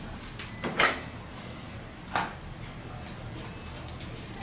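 A few brief, light knocks and rustles of handling as butter slime is put into a slime palette's compartments, little by little.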